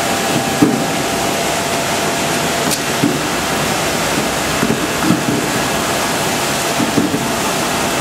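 Apple washing machine running: a steady wash of water spray and turning spiral rollers with a faint motor hum, broken about four times by dull knocks of apples tumbling against the rollers and steel frame.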